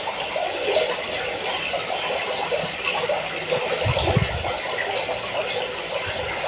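Aquarium water bubbling and gurgling, a steady run of small rattling pops, with one low thump about four seconds in.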